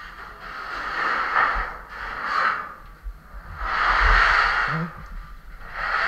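Heavy, rhythmic breathing close to the microphone, about three long breaths that swell and fade, from someone straining to haul heavy steel bars.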